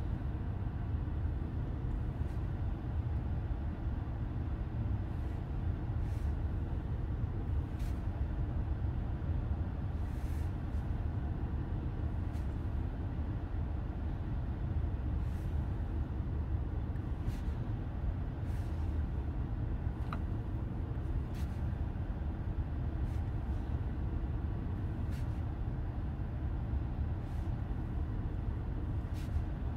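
Steady low rumble inside the cabin of a 2018 Toyota Highlander idling, with light, irregular taps of a finger on a touchscreen scattered through it.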